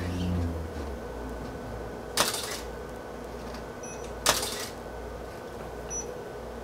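Camera shutter released twice, about two seconds apart, each a sharp clack with a brief rattle. A faint short high beep follows about a second and a half after each shot.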